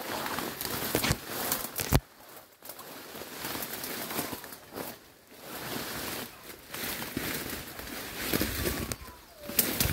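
Leaves and thin branches rustling and scraping as a person pushes through dense brush and vines on foot, with one sharp crack about two seconds in.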